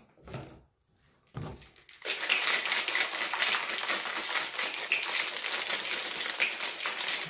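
Plastic shaker cup being shaken hard to mix energy drink powder with water, a rapid, even rattle that starts about two seconds in after a few brief handling sounds.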